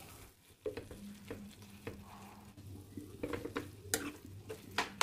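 Steel masher and ladle mashing boiled potatoes into the vegetables in a frying pan: irregular soft knocks and scrapes of metal against the pan, over a light sizzle of the cooking bhaji.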